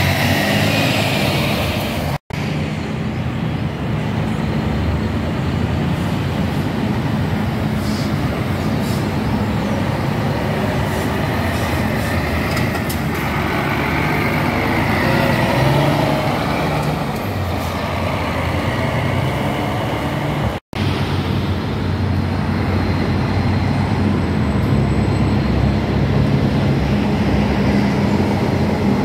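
Diesel engines of large intercity coaches running as they drive slowly past one after another, with tyre noise. The sound drops out for an instant twice.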